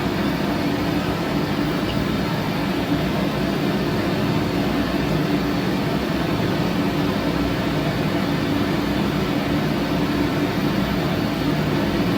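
Steady mechanical drone of machinery running, a continuous rushing noise with a low hum under it that does not change.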